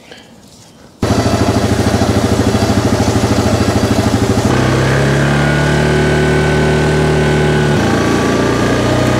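Yamaha Grizzly 700 ATV's single-cylinder engine, running steadily under load while it drags a strapped log. The engine sound cuts in abruptly about a second in, and its note changes about halfway through and again near the end.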